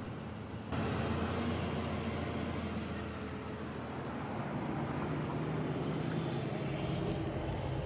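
Street traffic noise: a steady rush of road vehicles with a low engine hum underneath, starting abruptly less than a second in.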